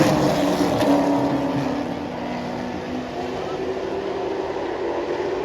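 A field of limited late model race cars running laps on a short oval, their engines falling in pitch as the pack passes in the first couple of seconds, then settling into a steadier drone from farther around the track.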